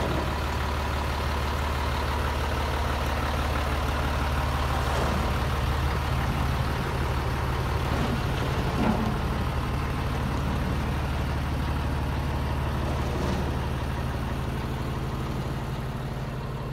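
Scania T113 concrete mixer truck's 11-litre six-cylinder diesel engine idling steadily.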